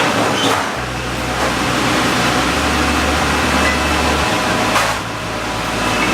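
Steady rush of air and mechanical hum from a commercial kitchen's ventilation, with a low drone that drops away about two-thirds of the way through.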